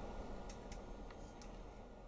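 A few faint, light clicks of a utensil against a plastic measuring cup as peanut butter is scraped out of it into a stainless steel mixer bowl.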